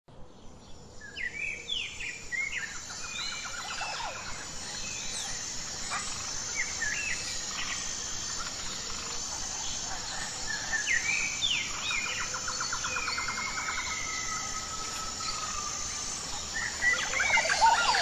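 Birds singing: chirps, quick pitch glides and trills over a steady hiss, with a short high note repeating about once a second. A burst of louder calls comes near the end.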